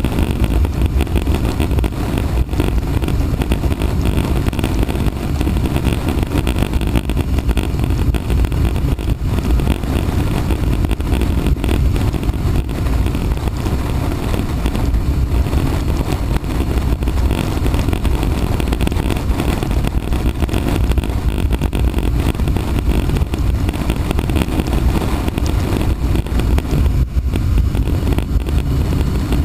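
Kawasaki motorcycle cruising at steady highway speed on a wet road: a steady low rumble of wind on the camera microphone with the engine's drone underneath.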